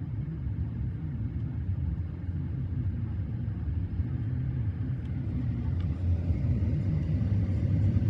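Car driving, a steady low rumble of engine and road noise heard inside the cabin, growing slowly louder toward the end.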